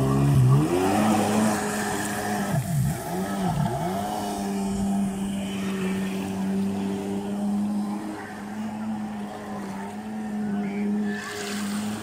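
Jet ski engine revving up as it pulls away, its pitch swinging down and up a few times in the first four seconds, then running at a steady pitch as the craft speeds across the water.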